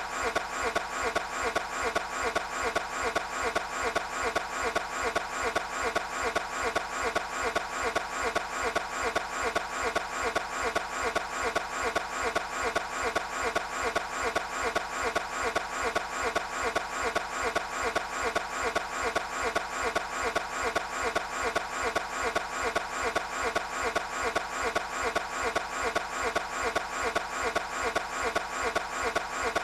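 Toyota 86 being cranked over by its starter again and again without catching, a rapid, even rhythm of several beats a second that never changes.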